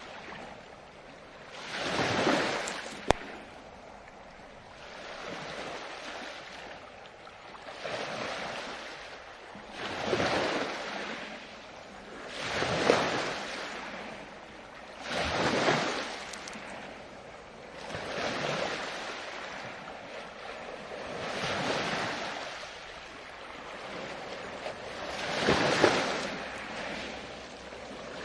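Ocean waves breaking and washing up the shore, swelling and fading in a new surge every two to three seconds. A single sharp click about three seconds in.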